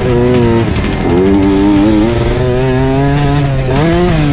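Small youth dirt bike engine running hard on a motocross track, picked up by an onboard camera. The revs dip about half a second in, pick back up at about a second, and climb again near the end.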